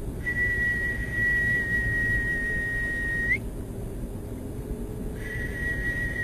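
A steady, high-pitched pure tone, played as a healing sound for listeners, holds for about three seconds and flicks briefly upward as it stops. It starts again about two seconds later, over a low background rumble.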